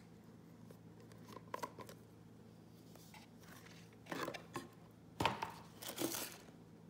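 Plastic skincare jar being opened by hand: small clicks as the screw lid is twisted off, then short scraping, rustling bursts as the lid and the clear inner cap are handled. The loudest bursts come about five and six seconds in.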